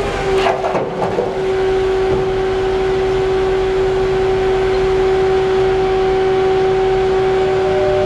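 A heavy machine's steady whine: one held tone with an overtone, settling after a slide down in pitch, with a brief clatter about half a second in.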